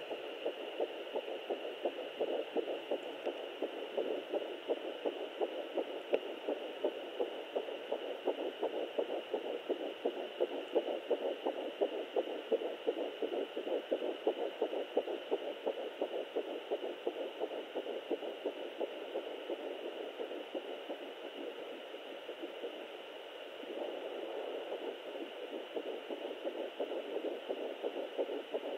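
Fetal heartbeat at almost 10 weeks, picked up by a Doppler ultrasound probe: rapid, even pulses over a steady faint high tone. The beat weakens briefly about 22 seconds in, then comes back strongly.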